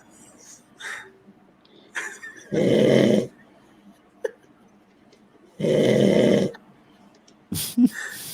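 A man snoring: two long snores about three seconds apart, with fainter snorts and breaths between them and a short sharper noise near the end.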